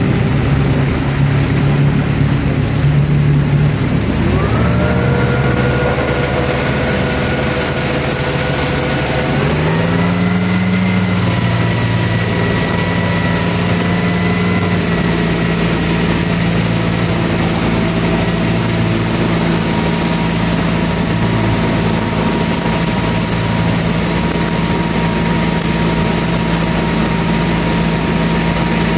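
Motorboat engine running under load while towing a tube. Its pitch climbs as the throttle opens about four seconds in and again near ten seconds, then holds a steady drone. Wind and rushing water make a constant hiss throughout.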